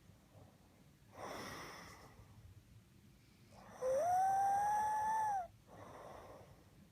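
A sleeping person snoring: a soft rasping breath about a second in, then a loud snore that carries a whistling tone, rising at first and then held for about a second and a half, and a fainter breath after it.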